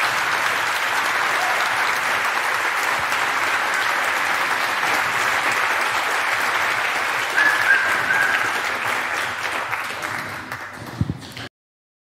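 Audience applauding steadily, with a brief louder call from the crowd about two-thirds of the way through; the clapping thins out near the end and then cuts off abruptly.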